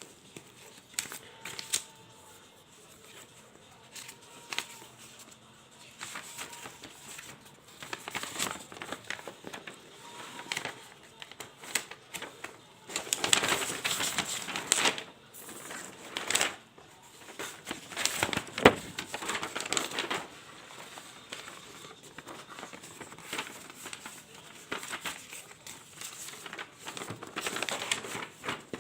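A power supply's box and packaging being handled during unboxing: irregular rustling and crinkling of plastic and cardboard with scattered clicks and knocks. It is busiest in the middle, with one sharp knock a little past halfway.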